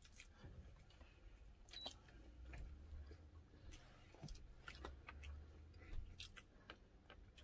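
Near silence, broken by faint, scattered clicks and taps of eating at the table.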